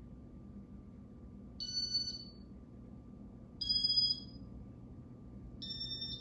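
Three high-pitched electronic chimes from a 1995 Casablanca Panama ceiling fan's controls running in demo mode, each about half a second long and two seconds apart. A steady low hum continues underneath.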